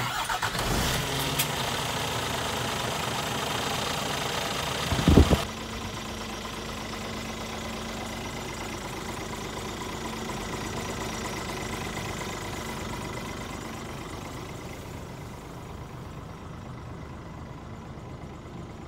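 Scania G490 truck's 13-litre inline-six diesel idling, loud at first while the cab is open. The cab door shuts with a heavy thump about five seconds in, and the engine is then heard steady and muffled from inside the cab.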